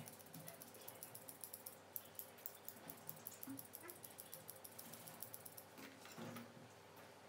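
Grooming scissors snipping through a dog's coat: a quick run of faint, light snips, several a second, that thins out after about four seconds.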